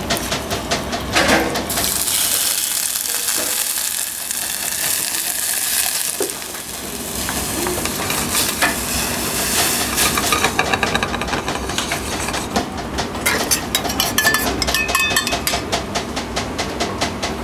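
A small piece of ham sizzling in olive oil in a hot pan, the hiss strongest through the first half, followed by many quick taps and scrapes of a utensil against the pan.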